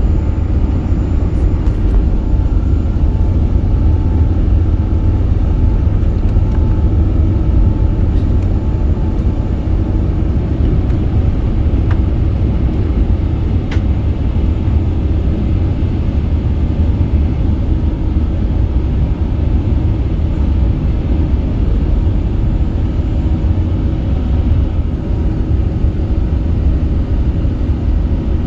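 Steady low rumble inside the passenger cabin of an Airbus A380, the airliner's engines and running noise, holding even throughout.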